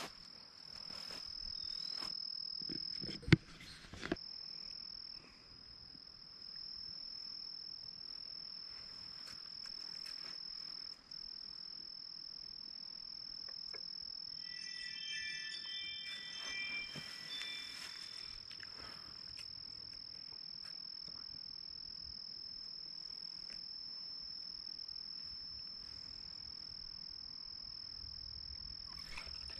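Steady, high-pitched chorus of insects such as crickets, unbroken at the edge of a pond in the evening. Two sharp knocks land about three and four seconds in, and a short pitched call is heard near the middle.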